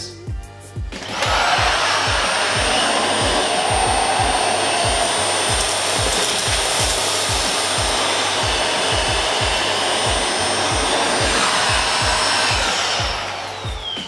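Dyson Ball Animal 2 upright vacuum cleaner switched on about a second in and running steadily with a high whine while cleaning a carpet through a handheld accessory head, then switched off near the end, the whine falling as the motor spins down. Background music with a steady beat underneath.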